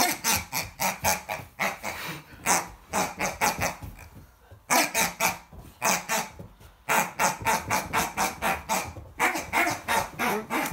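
Pink pig squeaky toy squeaked over and over in quick runs, about five squeaks a second with short breaks, as it is squeezed and bitten during play.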